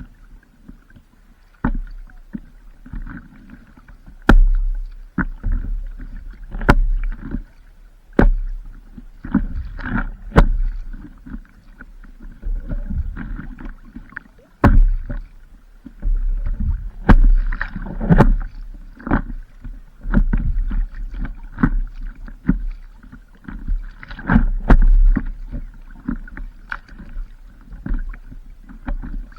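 Paddling on open water: irregular splashes and sharp knocks of a paddle stroking through the water and against the board, every second or two, with wind buffeting the microphone.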